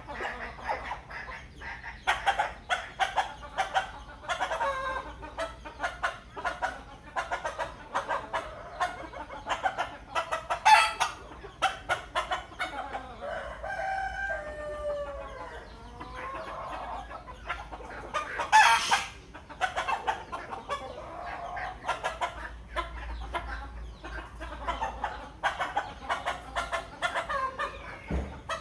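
Chickens clucking in quick, repeated short calls, with a stretch of gliding calls in the middle and a couple of louder squawks.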